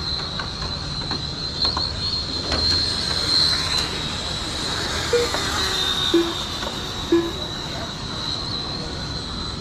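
RC oval race cars lapping the banked track, their motors and drivetrains making a high, steady whine that swells and fades as they pass. Three short beeps sound about a second apart around the middle.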